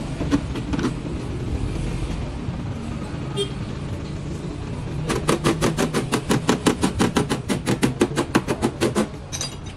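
Rapid, even light tapping on the car's door panel during paintless dent repair, about eight taps a second for some four seconds. A steady low rumble runs underneath.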